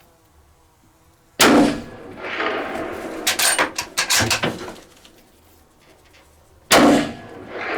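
Two rifle shots about five seconds apart, each a sharp, loud report followed by a rolling echo, with a few sharp clicks between them.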